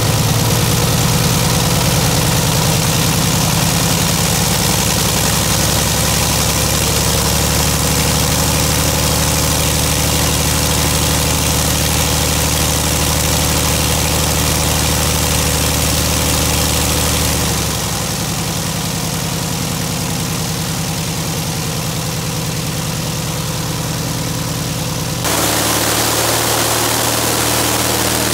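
UL Power UL520iS flat-four aircraft engine running steadily, turning a pusher propeller. Its note drops and the sound quietens about two-thirds of the way through, then changes abruptly a few seconds before the end.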